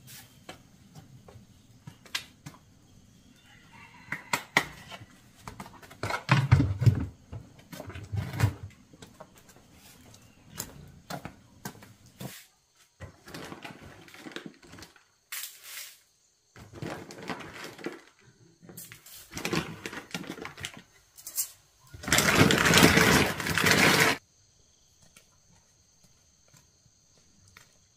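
Chore handling sounds: scattered knocks, clatter and rustling, with a louder rush of noise lasting about two seconds near the end. Afterwards a faint steady high hum of insects.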